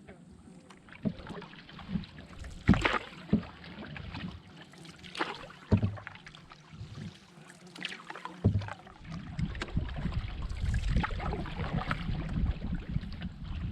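Canoe being paddled: irregular paddle strokes, splashes and knocks against the hull. From about eight and a half seconds in, a steadier low rumble takes over.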